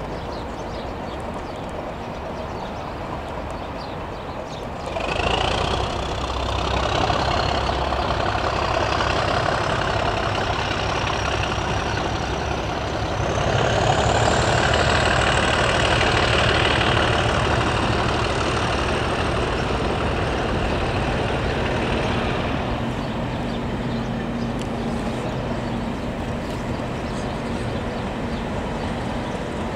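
English Electric-engined Class 37 diesel locomotive powering up as it hauls its train. About five seconds in the engine note swells, and a turbocharger whistle climbs steadily in pitch for around ten seconds. It is loudest in the middle, then the engine eases back after about twenty-two seconds.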